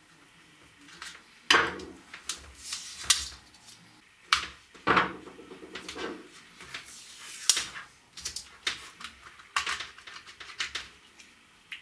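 Plastic clam-shell housing of a Dremel 3000 rotary tool being worked apart by hand: irregular clicks, knocks and short scrapes of hard plastic as the shell halves are pried and pulled loose.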